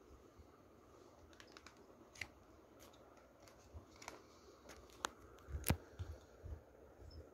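Stiff printed cards and booklet pages from a Blu-ray box set being handled: scattered light clicks and rustles of card, with a sharper tap about five and a half seconds in.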